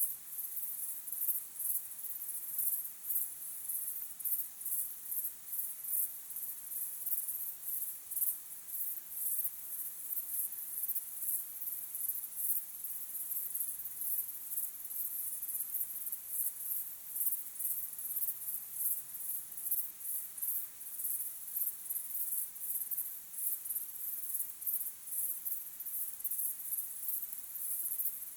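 Crickets chirping in a steady chorus: high-pitched trills pulsing fast and evenly without a break.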